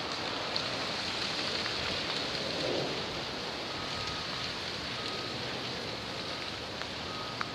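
Steady hiss of freezing rain falling on ice-glazed trees and snow, with a few light ticks near the end.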